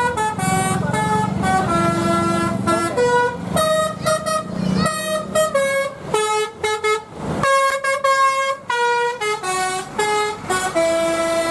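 Bus telolet horn, a Basuri-style multi-tone musical air horn, playing a quick tune of short held notes one after another, with a bus engine running underneath. The tune breaks briefly about seven and a half seconds in, then carries on.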